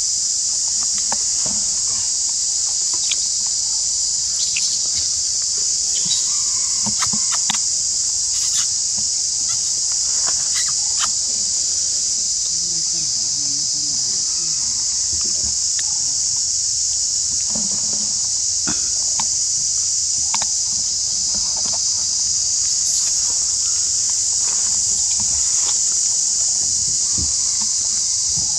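Steady, high-pitched drone of insects, with scattered faint clicks.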